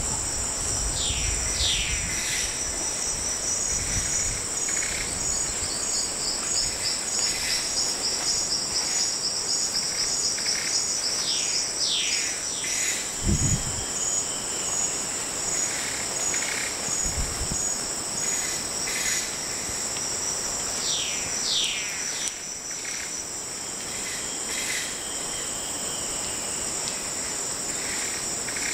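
Steady, high-pitched drone of tropical forest insects in two high tones, with a pulsing trill over it through the middle. Quick falling bird calls come in three clusters: about a second in, near the middle, and later. Two brief low thumps fall in the middle.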